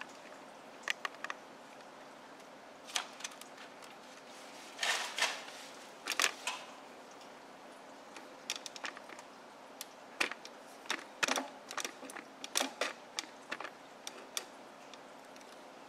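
Handling noise: scattered light clicks and knocks of hard plastic, irregular and uneven, with a couple of short rustling scrapes about five and six seconds in.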